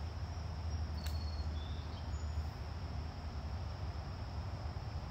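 Steady high-pitched chorus of insects such as crickets over a steady low rumble, with a single sharp click about a second in.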